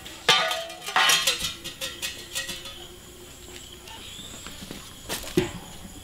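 Sharp knocks and clattering of household objects being handled, two loud ones near the start, then a run of smaller clicks with a short ringing tone, and one more knock about five seconds in.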